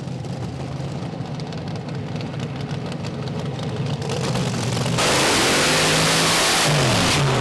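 Top alcohol dragster's methanol-burning engine idling steadily. About five seconds in it is revved hard into a burnout, much louder, with the rear tyres spinning. Near the end the revs dip and climb again.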